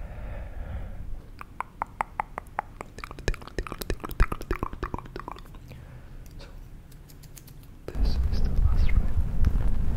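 Rapid close-up mouth clicks and plucking mouth sounds right at the microphone, a fast run of sharp clicks. About eight seconds in, a loud low rush of air on the microphone sets in.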